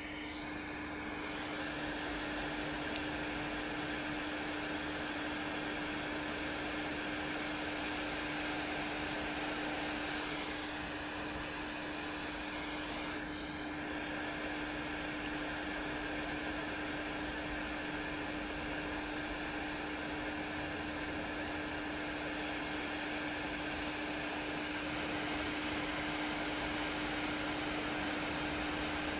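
Hot-air rework station blowing steadily through its nozzle onto a laptop motherboard while coils are soldered back on, cutting off right at the end.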